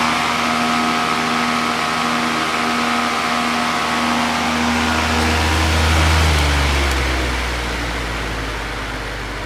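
Metal-bladed floor fan with a chrome wire grille running at speed: a steady motor hum under a loud rush of air. About six seconds in its pitch starts to fall and it grows quieter as the fan slows down.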